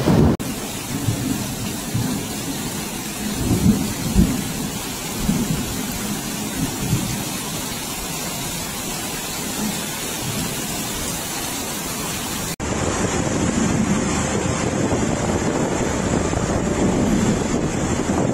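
Heavy storm rain pouring down, a dense steady hiss, with irregular low rumbles of wind gusts. About two-thirds of the way through it cuts abruptly to another stretch of heavy rain and wind.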